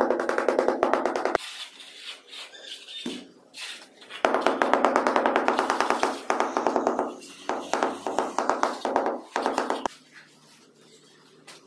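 Rubber mallet tapping rapidly on large 2-by-2-foot ceramic floor tiles to bed and level them, a quick steady run of knocks. A short run starts it, then after a pause a longer run, which stops about ten seconds in.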